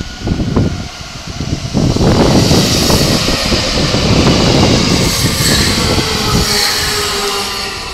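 Keikyu Line electric train passing: gusty wind noise on the microphone gives way about two seconds in to a loud rushing sound with hiss and a few steady high tones, which starts fading near the end.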